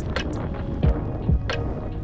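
Background music with a deep kick drum beat and sharp high ticks over sustained tones.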